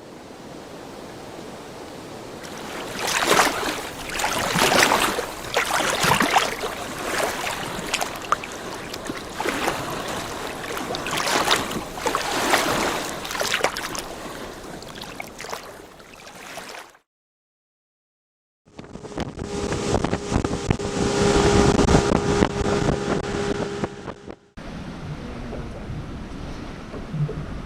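Wind buffeting the microphone over water noise on a fishing boat, in several edited segments; in one segment a boat motor hums at a steady pitch under the wind.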